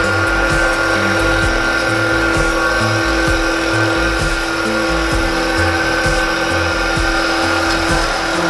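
Electric stainless-steel multipurpose flour mill running with a steady whine while grinding dried spices. Background music with a beat plays over it.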